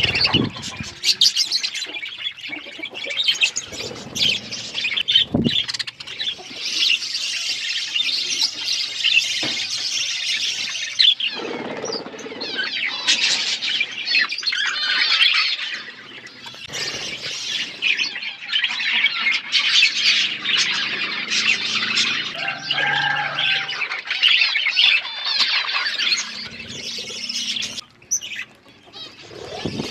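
A flock of budgerigars chattering, a dense continuous mix of high chirps and squawks, briefly thinning near the end.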